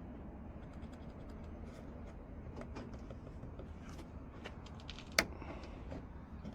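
Scattered light clicks and ticks of a locksmith handling a key and small tools, with one sharper click about five seconds in, over a steady low hum.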